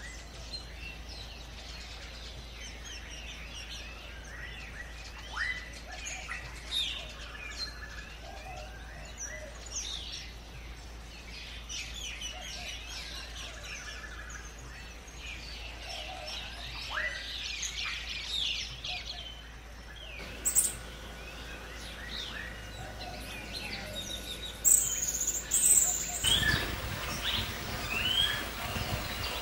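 Several birds chirping and singing in short calls over a faint steady background. About two-thirds through the sound changes abruptly; the calls get louder and a low rumbling noise joins in near the end.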